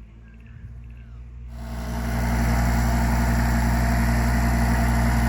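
A heavy earthmoving machine's diesel engine, faint at first. About a second and a half in it jumps up sharply and runs loud and steady.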